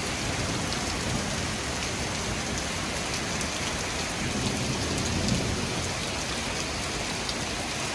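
Fierce thunderstorm downpour: heavy rain pouring onto pavement and parked cars in a dense, steady hiss.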